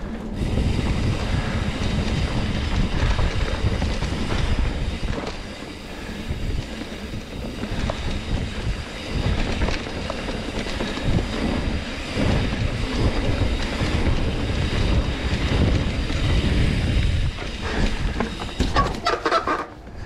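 Trek Roscoe 9 hardtail mountain bike ridden fast down a dirt singletrack: tyres rumbling over the dirt and the bike rattling over bumps and roots, with wind rushing on the microphone. A few brief high squeaks near the end.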